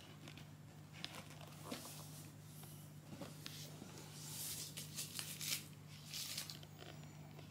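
Faint scattered rustles and light scrapes of a kitten and a stick toy moving on a hard floor, busiest in the second half, over a low steady hum.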